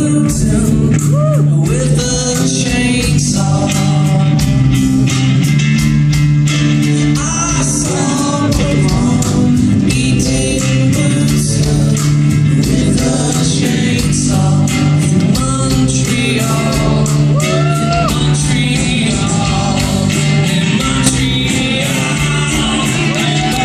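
Live rock band playing with singing: a steady drum beat, sustained bass and guitar under a gliding vocal line.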